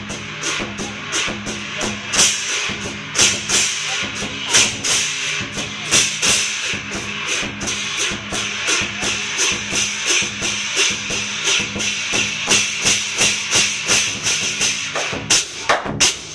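Lion dance percussion: drum, cymbals and gong beating a fast, steady rhythm, with the cymbal clashes the brightest sound.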